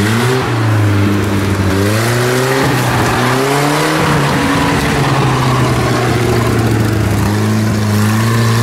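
GAZ-69 off-roader's engine working under load, its pitch rising and falling a few times as the throttle is worked, then running steady at a constant pitch for the second half.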